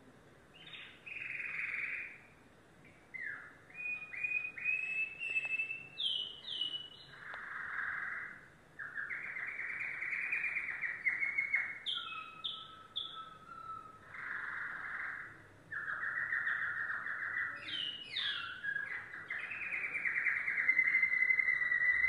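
Domestic canary singing a long, varied song of trills and rolling phrases with short breaks between them. The song starts about a second in and ends on a long, loud trill.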